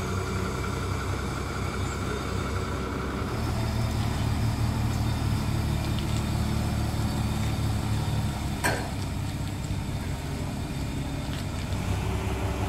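Diesel engine of a large Caterpillar forklift running steadily. It grows louder from about three seconds in while the forklift drives with its load, then eases off. A single sharp knock comes about two thirds of the way through.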